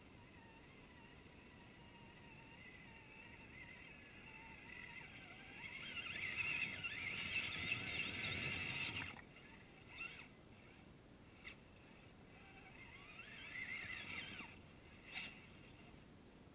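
Traxxas Summit RC truck's electric motor whining, rising and falling with the throttle as it drives over dry leaves, with the tyres rustling and crunching through them. It is faint at first, loudest from about six to nine seconds in, then drops away, with a few short knocks and another rising whine near the end.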